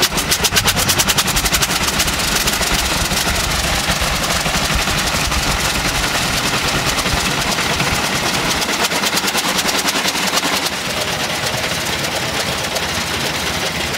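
A 1906 Adams-Farwell's air-cooled rotary engine running, its whole cylinder block spinning on the fixed crankshaft. It fires in rapid, even beats.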